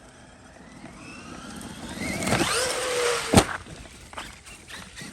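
Traxxas Maxx RC monster truck's brushless electric motor whining and climbing in pitch as the truck accelerates, getting louder, then one sharp knock about three and a half seconds in.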